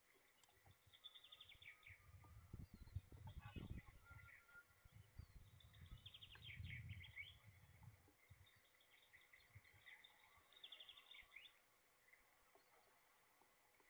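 Faint songbird song: short, rapid trilled phrases repeated every few seconds. Low rumbling noise comes in about two to four seconds in and again around seven seconds.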